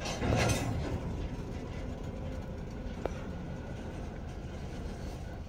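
Freight cars being switched: a loud clanking crash about half a second in as the cars bump together, then a steady low rumble from the train, with one sharp metallic click about three seconds in.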